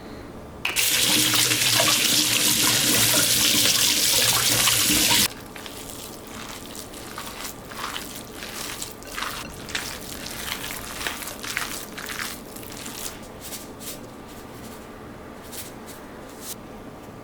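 Kitchen tap turned on, water running into the sink for about four and a half seconds, then shut off abruptly; afterwards a string of light clicks and rustles of handling.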